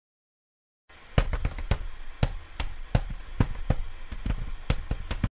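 Keyboard-typing sound effect: irregular sharp clicks and taps, about three or four a second, over a steady hiss, starting about a second in and cutting off abruptly at the end.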